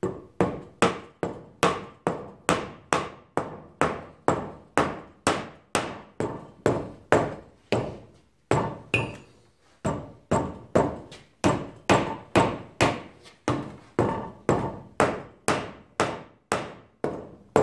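Hammer blows, about two a second, tapping a Ford 9-inch third member down into the rear axle housing to seat it over the housing studs. Each strike rings briefly.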